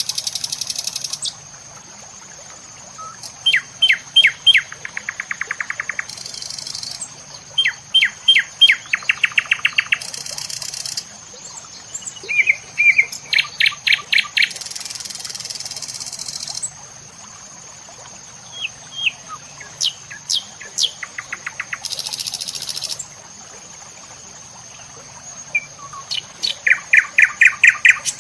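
Birds chirping and calling close by in quick series of repeated sharp notes, with pauses between the runs. Over a steady high whine, several brief hissy bursts come and go.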